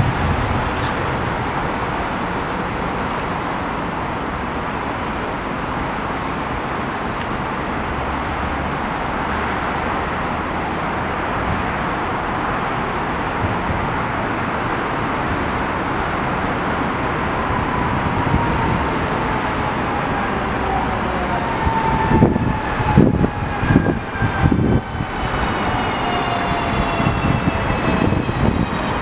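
Steady rumble of a diesel shunting locomotive running off into the distance, blended with city and railway noise. In the second half a slowly falling whine with several overtones rises out of it, and a few heavy low thumps come a little later.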